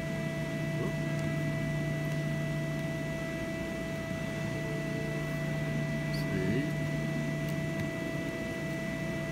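Hydraulic system of a Cincinnati 175-ton CB II CNC press brake running during a ram cycle, a steady hum with a few constant tones.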